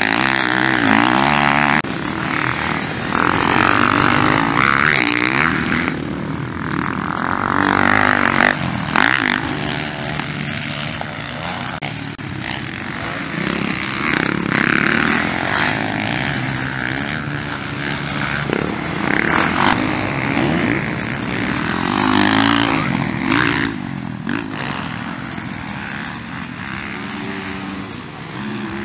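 Motocross dirt bike engines revving hard on the track, the pitch rising and falling again and again as the bikes accelerate and back off through the turns.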